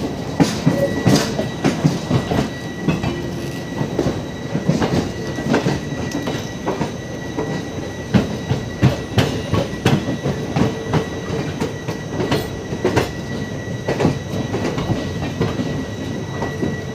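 Indian Railways LHB passenger coaches rolling past as the train departs, their wheels clattering and knocking irregularly over rail joints and points. A thin, steady wheel squeal runs under the rumble.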